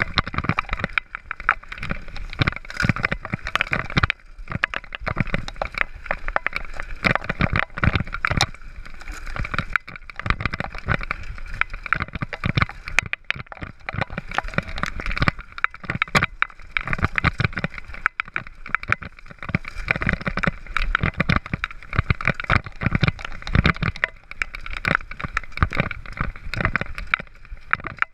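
Mountain bike clattering and rattling over a rough dirt singletrack on a downhill run, a dense, irregular stream of knocks and jolts over steady rushing noise.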